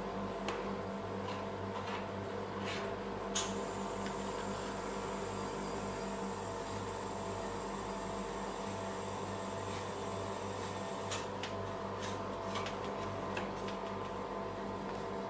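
Steady electric hum from a rolled-ice-cream cold-plate machine, with scattered short taps and scrapes of metal spatulas on the frozen steel pan as avocado ice cream is scored and scraped into rolls. The sharpest tap comes about three and a half seconds in.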